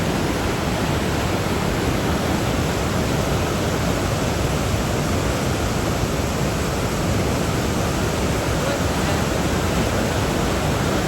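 Rain-swollen river rushing through the waterfalls, a steady dense rush of water that does not let up.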